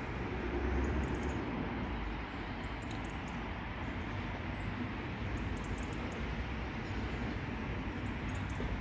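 Steady outdoor background rumble and hiss, with faint high ticks scattered through it; no train is passing close by.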